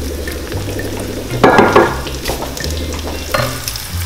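Chopped onion, walnuts and mint frying in oil in a pan and being stirred with a wooden spatula, with a louder burst of sizzle and scraping about a second and a half in.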